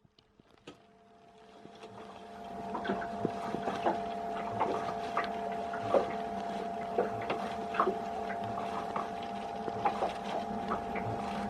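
Irregular light metallic clicks and ticks of a wrench undoing the top bolt that holds a CAV diesel pre-filter bowl together, over a steady hum that fades in during the first couple of seconds.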